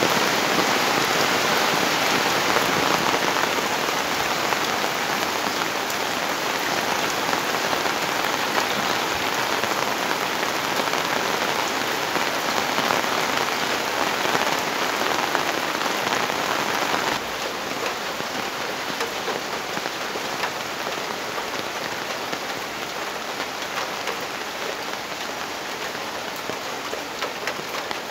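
Rain falling steadily, an even hiss of drops striking surfaces. About 17 seconds in it drops a little in loudness and sounds slightly duller.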